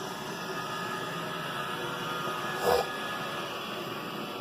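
iRobot Roomba 960 robot vacuum running steadily over carpet, its motor and brushes making an even whirring noise. A short, louder sound cuts in once, a little past halfway.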